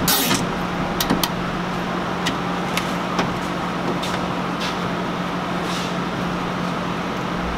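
Steady mechanical hum with a constant droning tone, like an idling vehicle engine. Scattered light clicks and scrapes come from hands fastening a thin LED strip and wire overhead.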